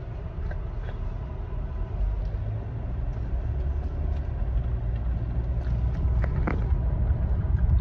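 Low rumble of a car heard from inside the cabin, slowly growing louder, with a few faint clicks.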